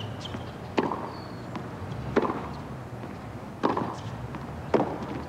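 Tennis rally: rackets striking the ball back and forth, four sharp hits about a second and a half apart.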